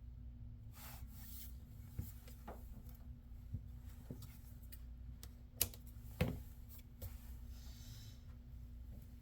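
Small clicks, taps and rustles of hands working laptop screen parts and tape, with two sharper clicks a little past the middle, over a steady low hum.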